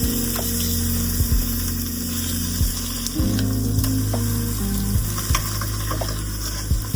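Background music: sustained low chords that change about three seconds in, with scattered soft percussive hits over a constant crackling hiss.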